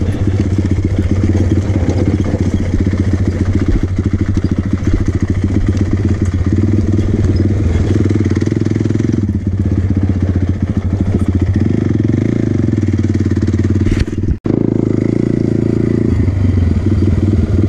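Honda TRX450 quad's single-cylinder four-stroke engine running on the throttle while riding a rocky dirt trail, the note shifting as the rider works the throttle. The sound cuts out for a split second near the end.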